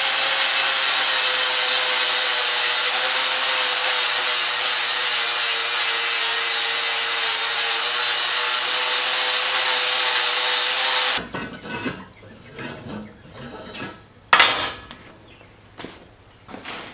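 Angle grinder grinding the rough torch-cut end of a steel pipe smooth, a loud, steady whine over the grinding noise. It stops abruptly about eleven seconds in, followed by a few knocks and handling sounds as the tool is put down.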